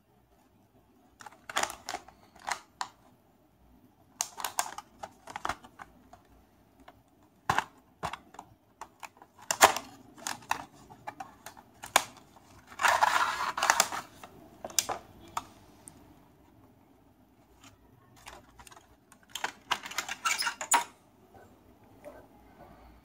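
Cardboard display box and plastic tray being handled and opened: scattered clicks, taps and scrapes of card and plastic. There is a longer rustle about thirteen seconds in and a quick cluster of clicks near the end as the model van comes out of its tray.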